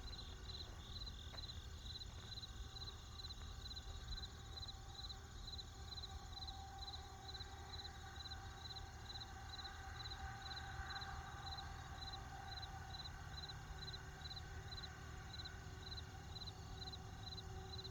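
Crickets chirping in an even rhythm, about two chirps a second, over a steady low rumble of distant traffic.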